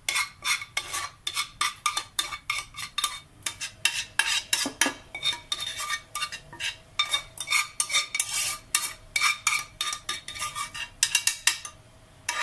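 A metal spoon rapidly scraping and clinking against a bowl and a metal baking tray as thick milk pudding is scooped out and spread, with a faint ringing after the strikes. The clinking stops shortly before the end.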